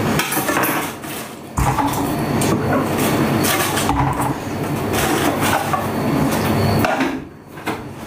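Kitchen handling noise: rustling and knocks as chopped cabbage goes into a saucepan and the pan is moved onto the hob, with a sudden knock about a second and a half in and another about four seconds in.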